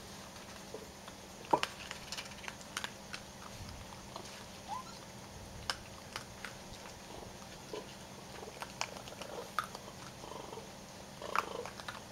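A group of raccoons scrambling and feeding around a wooden table and bowls: scattered sharp clicks and taps, the loudest about a second and a half in, with a few short rising squeaky calls.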